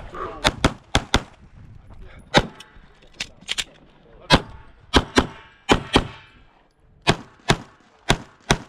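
Glock 45 9mm pistol firing about fifteen shots, mostly in quick pairs with short pauses between them, as a USPSA stage is shot.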